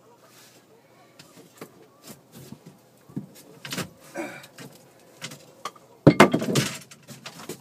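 Scattered knocks and rattles of gear being handled on the floor of a fishing boat, with a louder clatter lasting about a second and a half starting about six seconds in.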